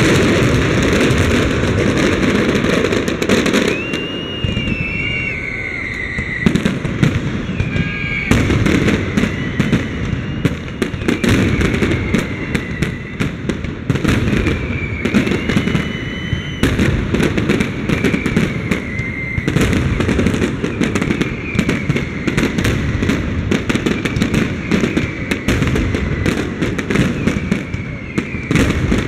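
Aerial fireworks display: a dense, continuous barrage of shell bursts, bangs and crackling. A high whistle gliding in pitch recurs every couple of seconds through it.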